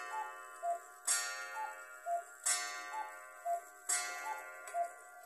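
Majak cuckoo clock calling the hour of twelve. Its two-note cuckoo call, high then low, repeats about every 1.4 seconds, four times, and each round comes with a sharp metallic strike that keeps ringing.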